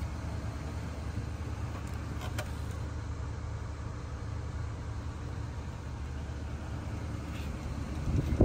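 1978 Cadillac Coupe DeVille's engine idling, a steady low rumble heard from inside the cabin.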